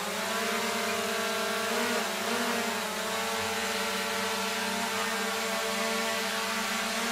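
DJI Mavic-series quadcopter drone hovering, its propellers giving a steady buzzing hum, with a brief waver in pitch about two seconds in.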